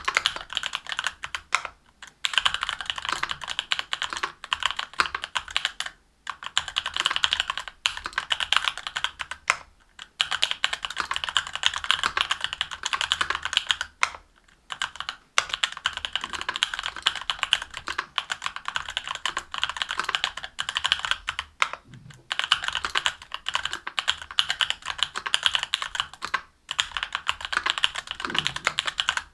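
Continuous fast typing on a mechanical keyboard with stock Durock Korbs linear switches on an aluminium plate, under GMK keycaps. Quick runs of keystrokes are broken by brief pauses every few seconds.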